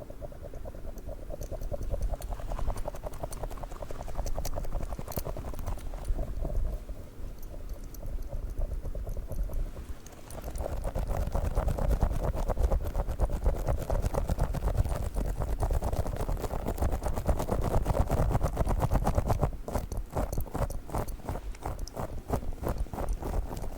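Fast, close-miked tapping and squishing on a squishy dog toy: a dense run of small soft clicks, with a short break about ten seconds in.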